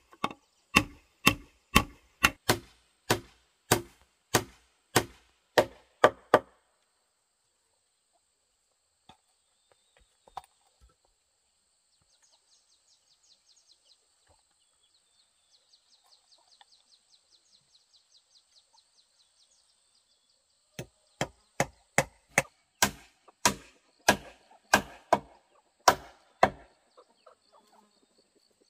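Steady chopping with a blade, sharp strokes about three every two seconds, stopping after about six seconds and starting again near the end. Faint insects chirring in the pause between.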